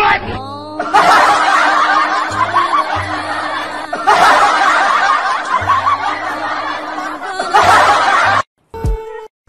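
Group laughter, like a canned laugh track, over background music, stopping abruptly near the end.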